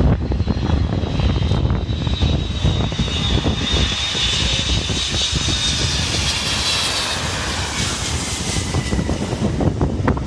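Air Canada Rouge Boeing 767 jet passing low overhead on final approach. Its engines whine louder to a peak past the middle, and the high whine falls in pitch as the plane goes by. Wind buffets the microphone throughout.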